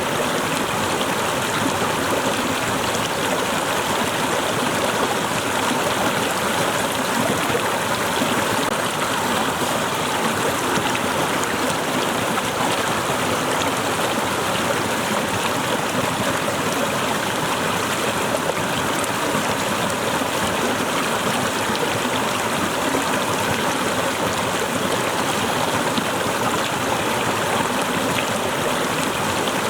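Waterfall: water cascading and splashing in a steady, unbroken rush.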